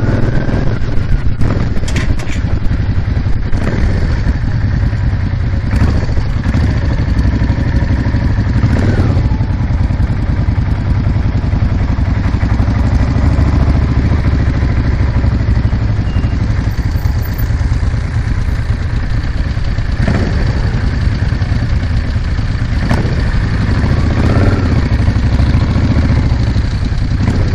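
Cruiser motorcycle's engine running while riding at low speed in traffic, heard close up from the bike itself as a steady low rumble, with a few short knocks along the way.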